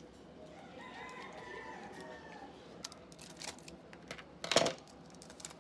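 A rooster crowing once, a drawn-out gliding call, about a second in. It is followed by light clicks and a sharp clatter near the end.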